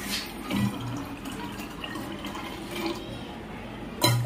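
Water pouring from a copper pot into plastic bottles as they are filled. A loud clunk comes about four seconds in.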